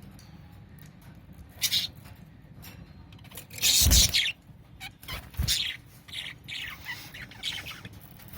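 Budgerigars giving short, scattered chirps and squawks, with one louder, fuller sound about four seconds in.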